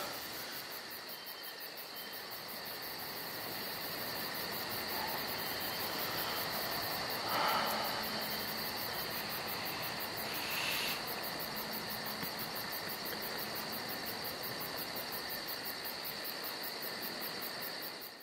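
Night insects trilling steadily in a continuous high-pitched chorus, cutting off abruptly at the end.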